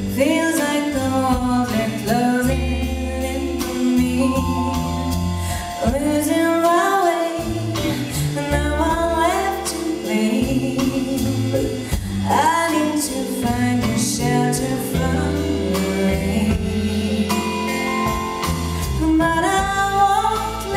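Live band music with a woman singing lead into a microphone, backed by drums, bass and electric guitar. Her melody rises and falls in long sung phrases over steady bass notes.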